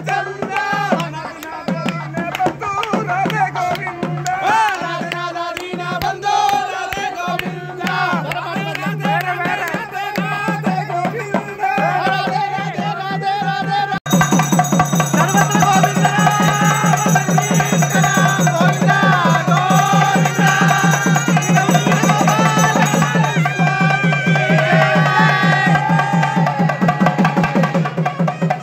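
Procession music: nadaswaram pipes playing a wavering, bending melody over fast, steady drumming. About halfway through it switches abruptly to a louder passage with denser drum strokes.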